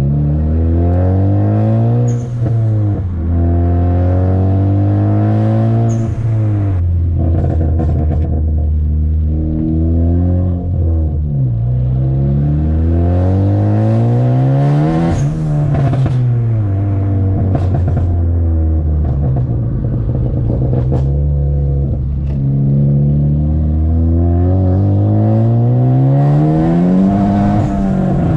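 Big-turbo Ford Focus ST engine and exhaust pulling up through the revs and lifting off, again and again, the pitch climbing and dropping. On the lift-offs there are sharp crackles and pops from its stratified pop tune.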